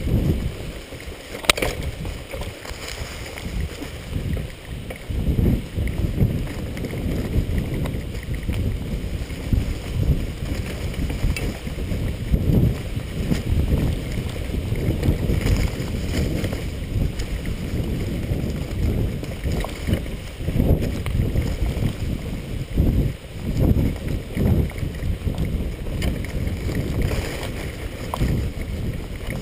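Wind rumbling and buffeting on the microphone of a chest-mounted camera on a bicycle riding a bumpy dirt and grass trail, with occasional sharp knocks from the bike, one about a second and a half in.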